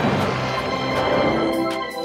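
Music with sustained held notes, in the manner of a film score.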